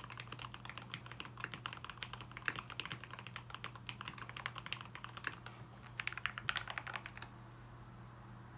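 Fast typing on a Dolphin V3 custom mechanical keyboard with lubed linear switches (Tribosys 3204 and Tealios parts, Cherry top housings, 55 g springs) and lubed stabilizers: a rapid, dense run of keystrokes with a brief pause near the middle, stopping about seven seconds in. A steady low hum sits underneath throughout.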